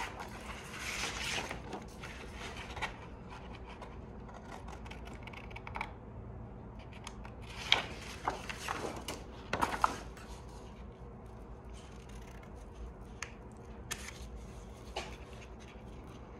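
Sheets of stiff template paper rustling and sliding on a steel table, then scissors snipping through the paper, with a cluster of sharp snips and clicks about halfway through.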